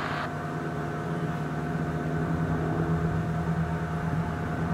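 Steady drone of a distant helicopter, with a hiss of radio static that cuts off sharply a moment in.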